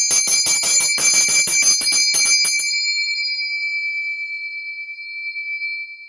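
Handbell rung rapidly, its clapper striking several times a second, then stopping about two and a half seconds in and leaving the bell to ring out on its high note, D7, slowly fading.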